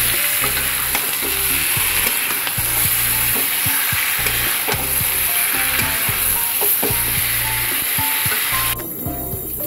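Chicken pieces and potatoes sizzling in spiced oil in a kadai while a spatula stirs and scrapes through them. This is the kasha stage, where the chicken is slow-fried in its masala. Faint background music runs underneath, and the sizzling cuts off near the end.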